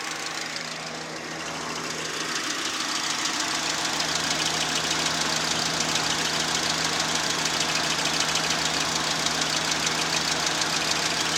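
VAZ-2110 16-valve four-cylinder engine idling steadily with a fast, even knock riding on the running sound. The knock is the engine fault being demonstrated. The sound grows louder over the first few seconds, then holds steady.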